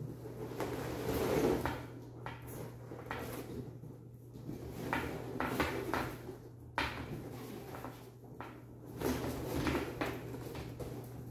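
Inflated latex balloons rubbing and squeaking against each other and against the column's metal frame as clusters are pulled off, with several separate handling noises.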